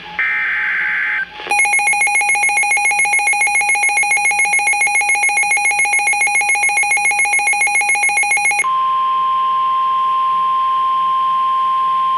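End of a NOAA Weather Radio SAME digital header burst, a short harsh warble, then a loud electronic alarm pulsing about seven times a second for about seven seconds. Near the end it switches to the steady single-pitch 1050 Hz warning alarm tone that signals a warning message is about to be read.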